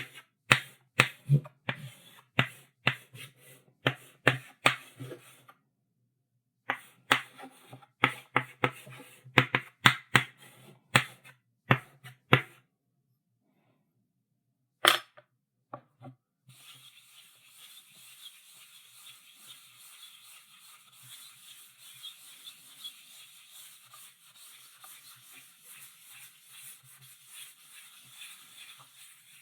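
Chalk on a blackboard: quick sharp taps and short strokes, two to three a second, in two runs with a pause between, then a last tap; from about halfway on, a faint continuous scratching of chalk drawn along the board.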